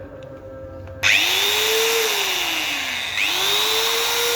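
Bosch angle grinder switched on about a second in, its motor spinning up quickly to a loud high whine; the pitch sags, then it picks up again sharply a little over three seconds in and settles at full speed.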